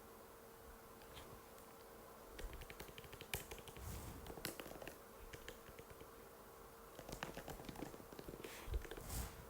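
Typing on an Apple MacBook butterfly keyboard: quick runs of light key clicks in two bursts, the first starting about two seconds in and the second about seven seconds in, with a few harder strikes among them.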